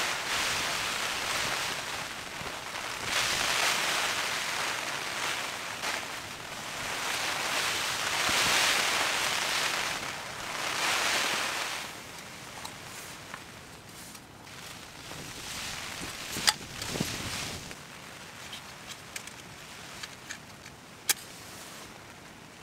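Storm wind and rain gusting against the tent in waves, loudest in the first half. Later, with the gusts easing, come light clicks and clinks of a Trangia cookset's metal pans and burner parts being handled, and a sharp strike about a second before a match flares.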